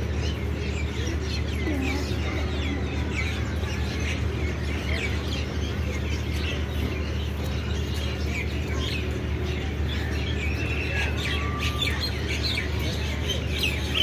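Many small birds chirping, with short overlapping calls several times a second, over a steady low background rumble.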